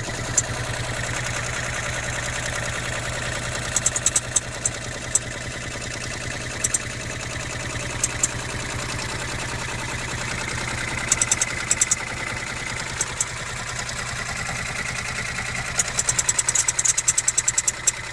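Brother PR600 embroidery machine stitching with a steady hum, broken every few seconds by clusters of short, sharp, high-pitched squeaks, with a fast run of them near the end. The intermittent squeak comes and goes while embroidering, and its cause is unknown.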